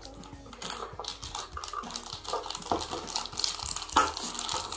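Plastic blind-bag toy packaging crinkling and rustling as it is handled and pulled open, with one sharp knock about four seconds in.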